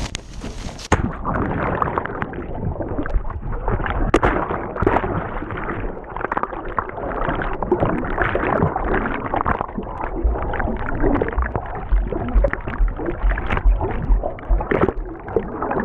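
Muffled sloshing and gurgling of muddy water around a GoPro in its waterproof housing, with scattered knocks against the case.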